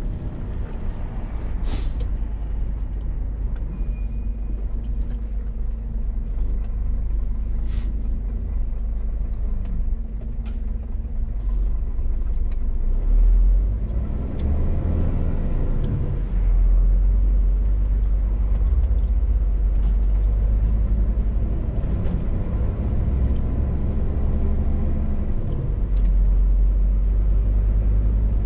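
Scania R450 lorry's 13-litre straight-six diesel engine running under way, a steady low rumble with road noise and a few brief clicks and knocks. The rumble grows louder about two-thirds of the way through.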